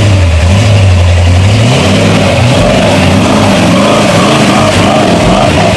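Lifted Jeep's engine running low and steady, then revving up about two seconds in, its revs rising and falling about twice a second as it pulls through a mud hole.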